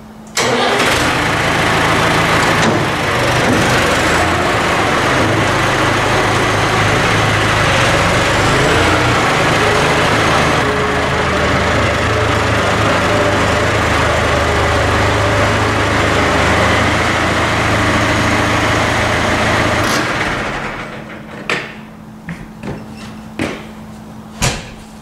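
Tractor engine running steadily for about twenty seconds, then it cuts off and a few sharp knocks follow.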